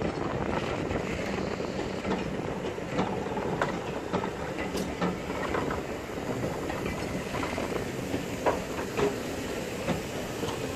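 Passenger coaches of a departing train rolling past at low speed: a steady rumble with irregular sharp clicks and knocks from the wheels over the rail joints.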